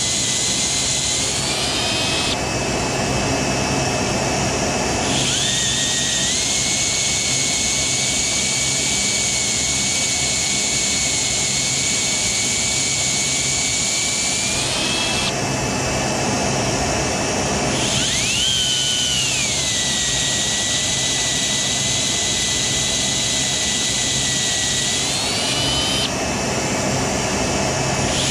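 Power drill running steadily as its bit drills a pilot hole into a broken, seized cam plate bolt for an extractor. Its whine shifts up and down in pitch several times as the drill speeds up and slows.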